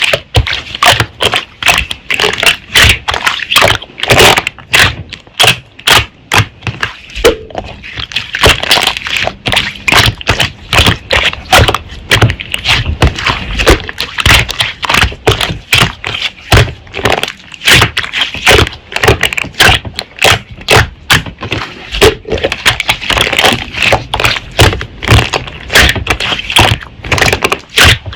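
Slime being squeezed and pressed by hand, giving a fast, irregular run of crackling pops and clicks, several a second.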